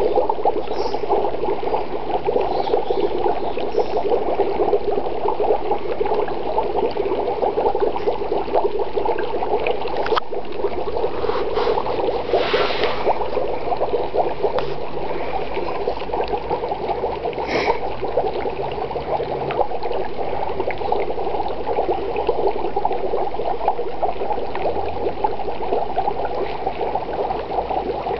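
Dry ice bubbling in a bucket of water: a steady, dense gurgling churn of bursting bubbles as the dry ice sublimates and throws off fog, with a single sharp click about ten seconds in.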